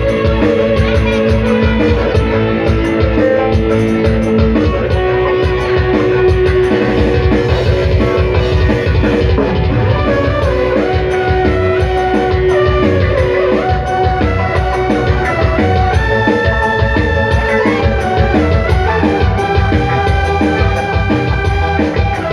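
Dangdut band music with a steady, busy beat of drums and bass under held melody lines from keyboard and guitar, with no clear vocal.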